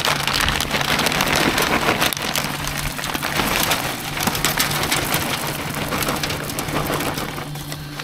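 Hardwood pellets pouring from a bag into a pellet smoker's metal hopper: a steady rattling hiss of many small pellets striking the metal and each other, easing slightly near the end.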